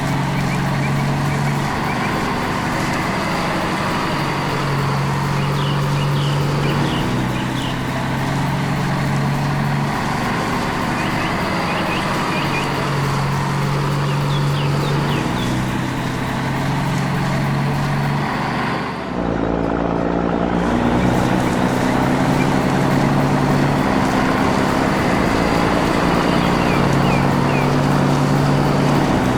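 Cartoon farm-vehicle engine sound effects running steadily, with short bird chirps above them. About two-thirds of the way through the engine sound changes to a different, richer drone.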